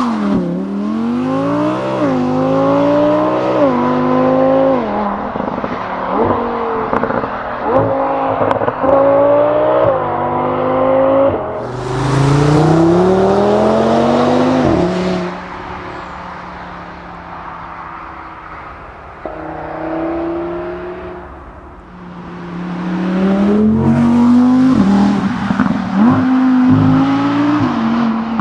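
2020 Audi R8 V10 with petrol particulate filter accelerating hard through the gears, its pitch climbing and dropping back at each quick upshift. About halfway it eases off and runs lower and quieter, then pulls up through the gears again near the end.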